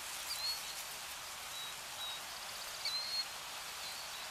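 A few short, high bird chirps spaced out over a steady, even hiss of outdoor ambience.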